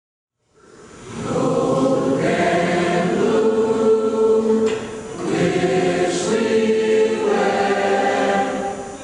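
A group of voices singing long held chords. It fades in from silence within the first second or so, and the sound dips briefly about five seconds in and again near the end.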